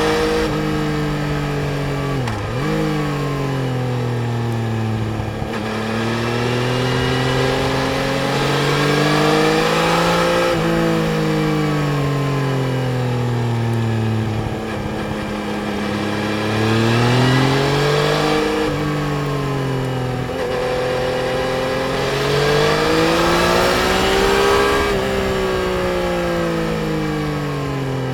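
Yamaha Tracer 900 GT's three-cylinder engine on the move, its revs repeatedly climbing and falling away, with a sharp dip about two seconds in and a few sudden drops later on, over a steady rush of wind.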